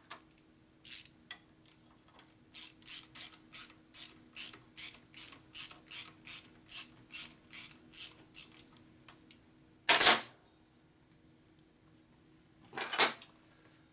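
Ratchet wrench clicking in short, even strokes, about two and a half a second, as a nut is run down an engine stud to double-nut it for removal. Two louder clatters follow near the end.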